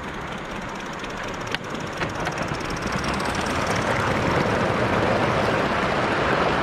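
Gauge 1 model train running along the garden track, getting louder over the last few seconds as it draws near. There is a sharp click about a second and a half in, and a couple of lighter ones just after.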